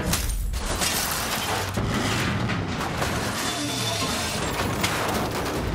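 A car crashing and scraping along the road on its side, with booming impacts and shattering, over dramatic action music.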